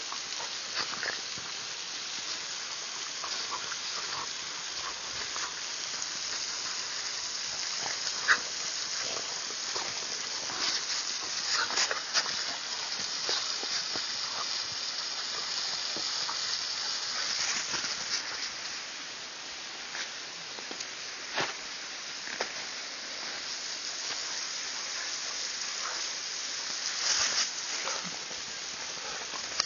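Dogs play-fighting in snow: bouts of growling with short scuffling knocks, over a steady hiss.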